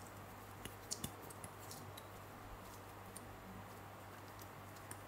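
Quiet room tone with a faint steady low hum and a few faint clicks, the clearest two about a second in.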